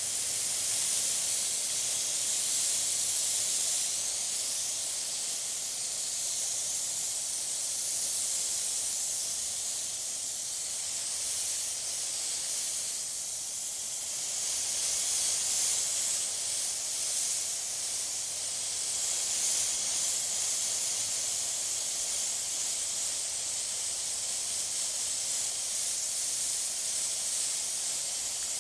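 Water spraying from a garden hose, a steady hiss with slow swells in strength.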